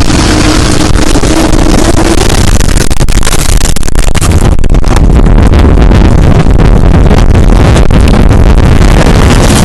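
Simulated tornado arriving: a loud, distorted rush of wind with a deep rumble and constant crackling, pushed close to full scale.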